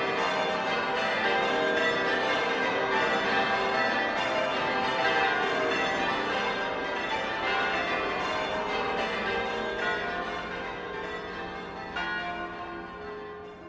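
Church bells ringing changes: a peal of many overlapping bell strikes that fades away over the last few seconds.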